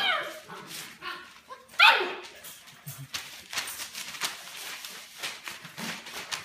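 Bernedoodle puppies yipping during play: a high yip right at the start and a loud yelp about two seconds in that falls sharply in pitch. Then quick clicks and scuffles of small claws scrabbling on a hardwood floor.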